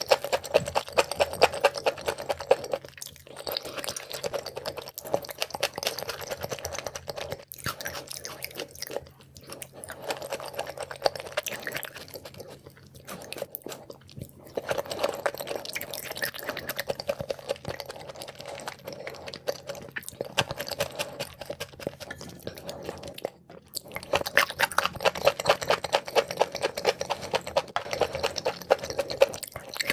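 Close-miked chewing of raw liver dipped in oil, a rapid run of wet mouth clicks in stretches broken by short pauses.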